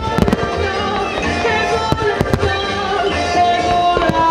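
Aerial fireworks shells bursting with sharp bangs, a cluster right at the start, a few more about two seconds in and one near the end, over loud music with a steady beat played to accompany the display.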